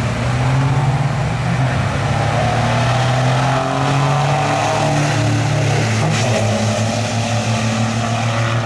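Dodge Cummins diesel pickup trucks racing off the line down a drag strip, their engines at full throttle with a deep, steady note that steps in pitch a few times as they go.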